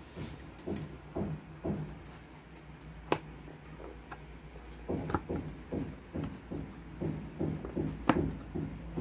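Cardboard pancake takeout box being handled and its lid pried open, with two sharp clicks, one about three seconds in and a louder one about eight seconds in as the lid comes free, over soft rhythmic thumps about twice a second.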